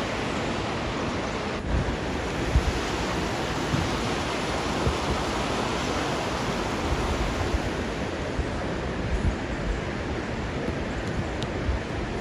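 Steady rushing of the Capilano River's water through the rocky canyon, with wind gusting on the microphone.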